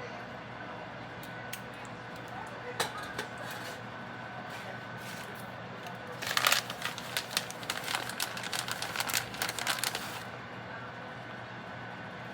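Kitchen handling noise: a few scattered light clicks, then about four seconds of rapid crinkling and clicking from around the middle.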